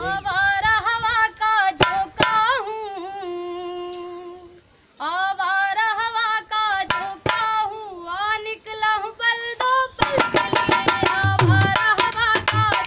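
A woman singing slow, unaccompanied opening phrases with long ornamented notes, one held note fading away before a short break. About ten seconds in, a dholak joins with quick hand strokes under her voice.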